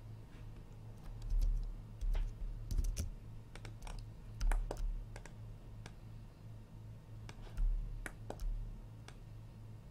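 Computer keyboard keys pressed in scattered, irregular clicks, as for shortcut keys, over a steady low hum, with a few dull low thumps, the loudest about a second and a half in and again past seven seconds.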